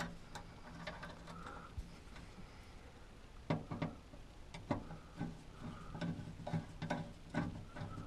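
Hand screwdriver turning a screw to fix a bracket to the cab's overhead roof bar: irregular clicks and ticks, sparse at first and coming thick and fast from about three and a half seconds in.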